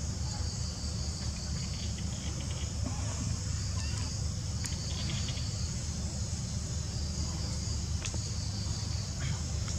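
A steady, high-pitched chorus of insects droning without a break, over a low steady rumble.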